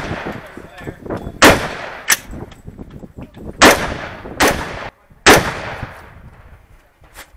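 Rifle shots: three loud shots about two seconds apart, each with a long echoing tail. Quieter sharp knocks follow the first two shots by about half a second.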